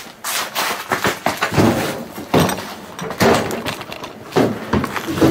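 Repeated loud crashes and clatter, several in a few seconds: a wooden door flung open and objects grabbed and thrown, landing with knocks and clinks.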